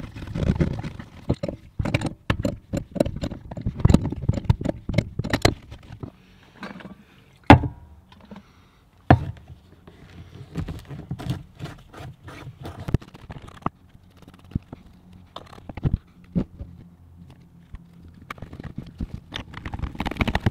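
White PVC pipe and fittings being handled and fitted: a run of knocks, taps and scrapes of the plastic pipe against a wooden floor, thick for the first few seconds, then scattered sharper knocks.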